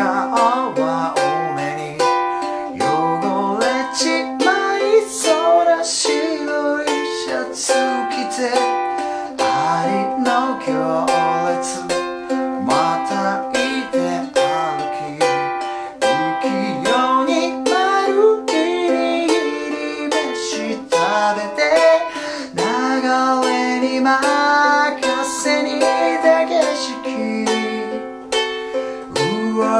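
A man singing in Japanese to his own strummed small ukulele, with regular strokes through the chords C, Csus4, G7sus4 and G7, moving to Am, Caug, C and D7 near the end.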